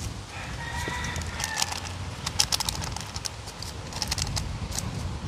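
Hands turning small seasoned sprat fish in a plastic bowl, making scattered sharp clicks and taps, with a bird calling in the background during the first second or so.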